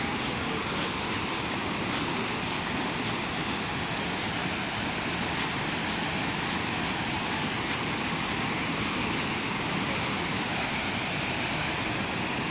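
Waterfall roar: a steady, even rushing of falling water.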